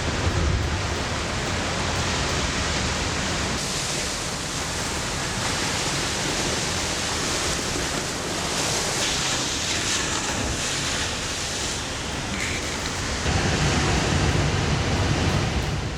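Heavy surf crashing, a steady roar of waves with wind, growing louder for the last few seconds.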